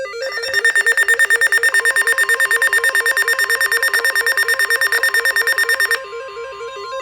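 Rapid, loud electronic alert beeping, about ten beeps a second, for about six seconds, then a steady single-pitch weather radio warning tone near 1050 Hz, with background music running underneath.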